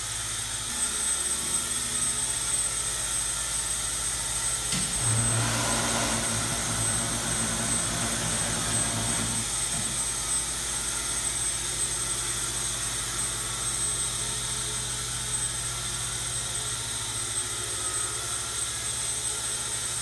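Milk-house equipment by a bulk milk tank running steadily: a mechanical hum with a high, steady whine. A louder, deeper pitched hum joins about five seconds in and stops around ten seconds.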